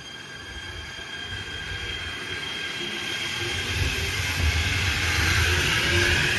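E127-series two-car electric train pulling away and gathering speed, its running noise growing steadily louder. A low rumble builds from about halfway through.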